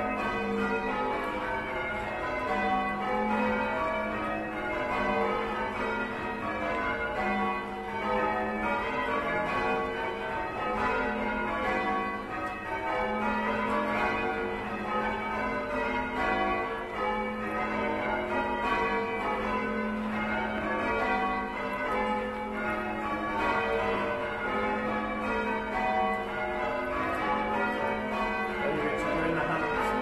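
Church tower bells being change-rung by a band pulling their ropes: a continuous, unbroken run of overlapping bell strikes.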